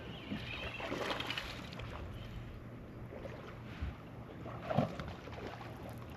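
Steady low hum with wind and water noise on a small fishing boat, broken by a brief louder sound about a second in and a sharper one near five seconds in.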